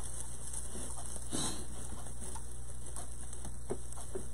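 Light rustling and scattered soft ticks of plastic deco mesh being handled as a tie is threaded through it, over a steady low hum.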